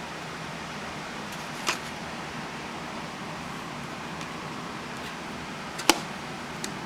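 Steady hiss-like background noise with two sharp clicks or knocks about four seconds apart, the second louder.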